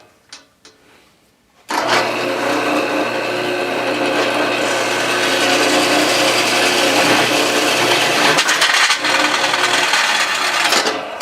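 A power tool cutting into clamped thin sheet metal to make a shim ring: a steady, loud scraping and grinding with a motor hum under it. It starts about two seconds in and stops shortly before the end.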